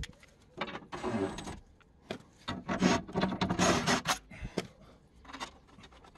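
An aluminium underbody protective plate being handled and fitted under a car: irregular bursts of metal rubbing and scraping, with a knock right at the start and a few more through the middle.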